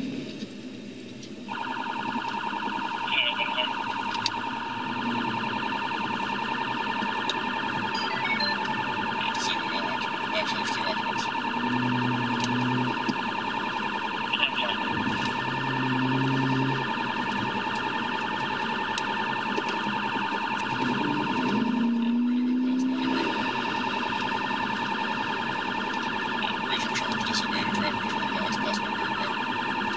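Police patrol car's electronic siren sounding a steady, unwavering high tone, heard from inside the pursuing car. It comes on about a second and a half in and cuts out briefly about two-thirds of the way through.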